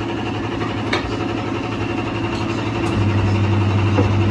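A motor running steadily with a low, even hum that grows louder about three seconds in, with a faint click about a second in.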